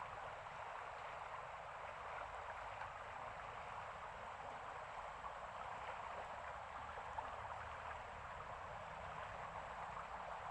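Steady rushing of flowing water, an even hiss with no distinct splashes or knocks.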